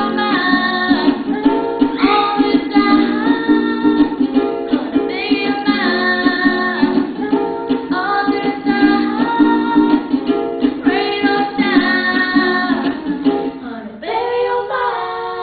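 Ukulele strummed in a steady rhythm under a boy's voice singing the melody. About fourteen seconds in, the strumming stops and a last chord rings out with the final sung note.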